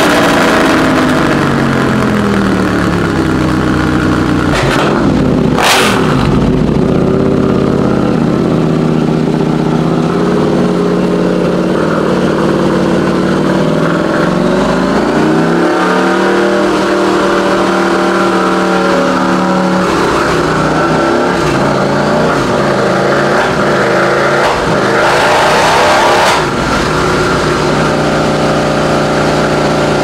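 KTM 890 Duke's parallel-twin engine, breathing through an Austin Racing silencer, running on a motorcycle dyno during part-throttle checks. The revs fall at first, then climb and hold steady at part throttle, with a sharp crack about five and a half seconds in and a loud surge near the end before the revs drop back.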